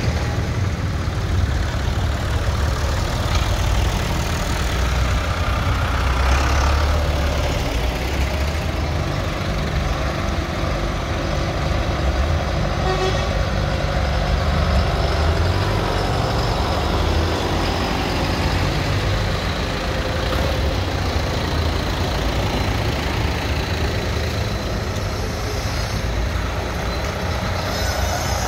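Diesel engines of farm tractors and then a Volvo FH lorry driving slowly past one after another, a steady low engine rumble that swells and eases as each vehicle passes.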